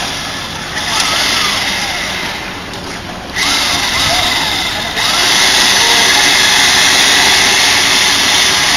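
Steady machine noise from a concrete pour, growing louder in two sudden steps partway through, with faint distant shouts.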